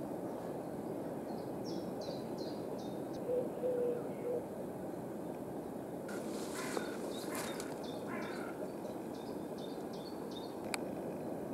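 Crows cawing, a few harsh calls about two thirds of the way through, over a steady outdoor background noise. Runs of short high ticks come before and between the caws.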